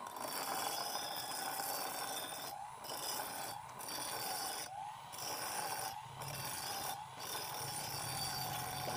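Bench grinder running with a motorcycle steering stem pressed against its wheel, steel grinding steadily as the stem is ground down to size in place of lathe turning. The grinding breaks off briefly about once a second as the part is turned against the wheel.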